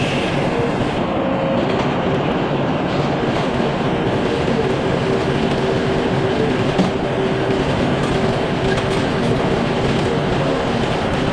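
Sawmill running steadily under load, the saw working through a log, with a steady machine hum under the cutting noise.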